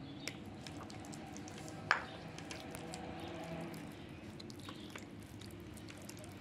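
Hands rubbing a thick red spice paste into a raw whole chicken: soft, wet squishing and smacking of skin and flesh, with one sharper click about two seconds in.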